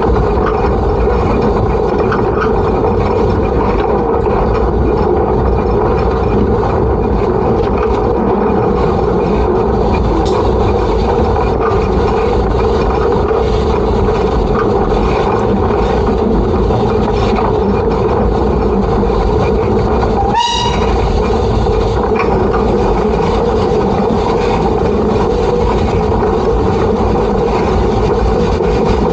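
Peckett industrial steam locomotive running along the line, heard close up from its coal bunker as a steady, loud running noise. About two-thirds of the way through comes a brief squeal that sweeps sharply upward in pitch.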